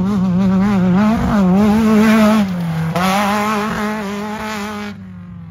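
Trophy truck engine at high revs, its pitch rising and falling again and again with the throttle, then dropping in level about five seconds in.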